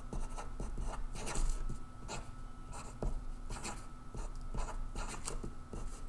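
Pen scratching on paper in short, irregular strokes, writing letters and drawing small circles.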